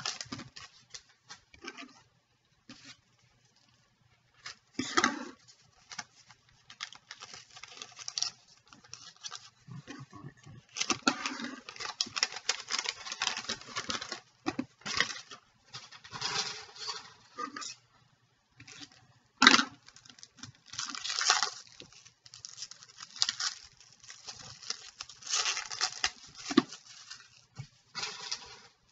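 Trading card pack wrapper crinkling and tearing as it is opened and crumpled by hand, in irregular bursts with short pauses, along with cards being handled and set down on a table.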